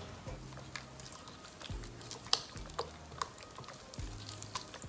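A spoon stirring thick cream in a glass bowl, with scattered sharp clicks and scrapes against the glass, the loudest about halfway through. Soft background music with low sustained notes runs underneath.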